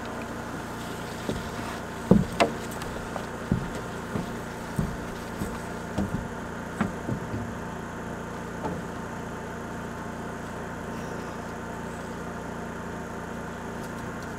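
A job-site motor runs steadily with a low, even hum. Over it, in the first nine seconds or so, about a dozen sharp knocks come at walking pace: boots stepping across the plywood deck and wall framing.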